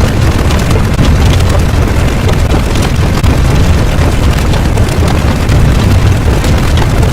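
A loud, steady low rumbling noise with a hiss over it, part of the video's sound effects.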